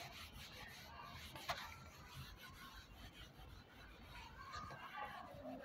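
Faint rubbing of a duster wiping a whiteboard clean, with one light click about a second and a half in.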